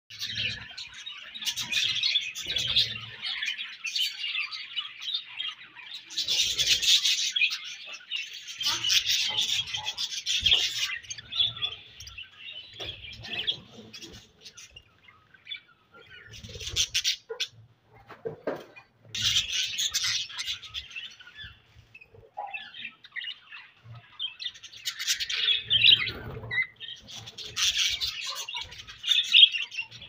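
A flock of budgerigars chirping and chattering together, coming in busy bursts with a few brief lulls.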